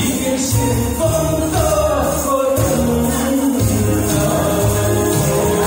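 A man singing a Taiwanese Hokkien song into a microphone over an amplified karaoke backing track with a steady beat.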